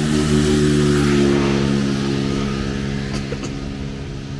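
A motor vehicle engine running with a steady hum, joined by a hiss that swells about a second in and slowly fades, as of a vehicle going by on the wet road.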